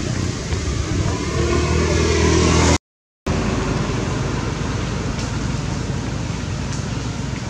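A motor vehicle's engine running and growing steadily louder as it approaches along the road, cut off suddenly by a moment of silence just under three seconds in. After that, only a steady, even outdoor hiss.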